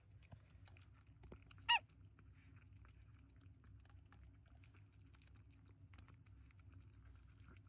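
Chihuahua puppy eating from a bowl: faint chewing and small clicks over a low steady hum, with one brief high squeak about two seconds in.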